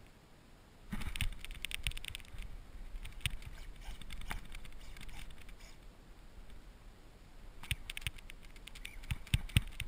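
Fishing reel and tackle clicking while a hooked fish is fought from a kayak: rapid ticking starts suddenly about a second in, thins out in the middle and comes back near the end. A few dull knocks on the kayak hull land near the end.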